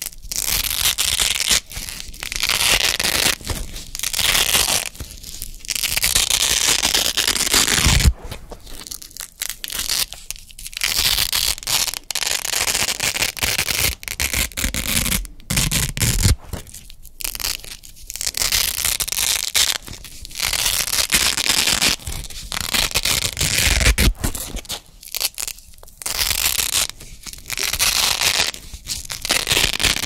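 Wide black hook-and-loop (Velcro) strips peeled apart again and again close to the microphone: a crisp, crunchy ripping. Each peel lasts about one to two seconds, with short pauses between.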